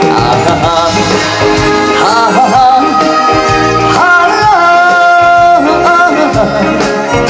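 Live trot song: band accompaniment with a steady beat under a wavering, held melody line.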